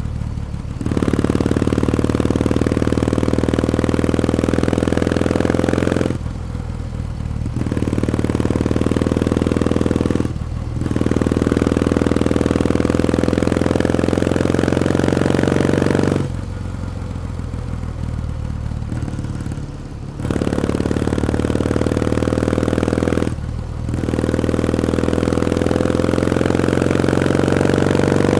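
Kawasaki W1 Special's vertical-twin engine under way, pulling hard with its pitch climbing steadily through each gear. The sound breaks off briefly for gear changes a few times and drops to a quieter off-throttle lull for a few seconds near the middle.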